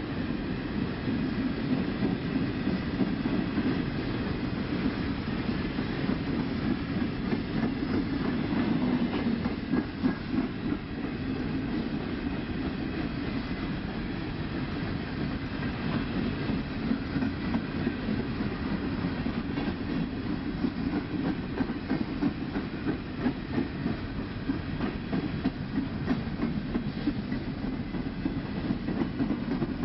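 Empty coal hopper cars of a freight train rolling past: a steady rumble with the wheels clicking over rail joints.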